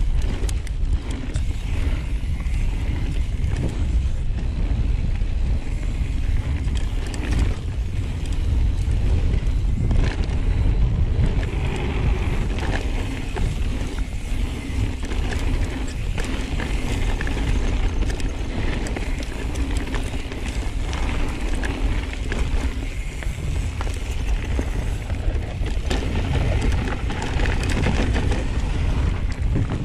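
Mountain bike riding fast down a dirt trail: tyres rolling over the dirt, with frequent small clicks and knocks of the bike rattling over bumps, over a constant rumble of wind on the microphone.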